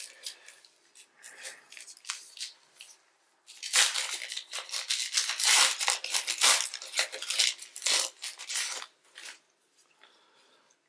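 Trading card pack wrapper being torn and crinkled while the cards are handled. There are scattered crackles at first, then a dense stretch of crinkling and tearing from about three and a half seconds in to about nine seconds, which then dies away.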